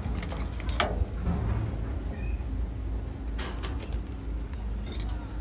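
Latch clicks and the metal side access door of a Sany SY135C Pro excavator's pump compartment being opened, over a steady low rumble.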